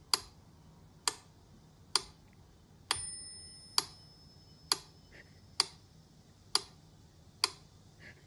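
Mechanical pendulum metronome ticking steadily, about one tick every 0.9 seconds. Its bell rings with the accented beat about three seconds in and again at the very end, every sixth tick.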